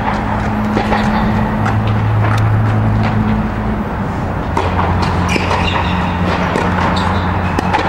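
Steady low mechanical drone with a hum from the air-supported tennis dome's blower and ventilation system, with a few faint knocks scattered through and brief high squeaks in the second half.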